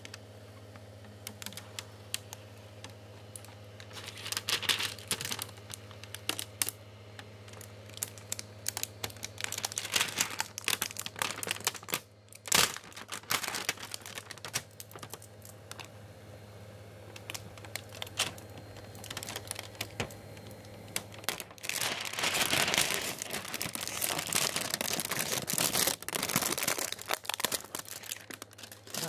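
Protective plastic film being peeled off a new 3D printer, crackling and crinkling with many small irregular clicks, one sharp snap about halfway through and a louder, continuous crackle near the end. A low steady hum sits underneath until about two-thirds of the way in.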